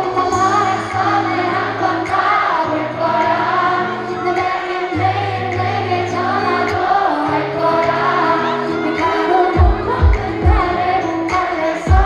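Female pop vocalist singing live into a handheld microphone over a pop backing track, heard through the concert sound system. Strong bass-drum beats come in near the end.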